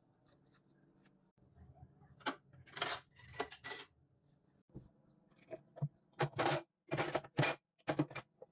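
Dishes, spoons and glass cups clinking and clattering as they are handled in a stainless steel sink: a string of sharp clacks, some with a brief metallic ring, starting about two seconds in.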